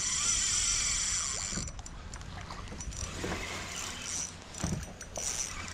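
Fishing reel on light tackle working while a snapper is played: a steady high buzz for the first second and a half, then shorter spells of it and a few small ticks, over water lapping at the kayak.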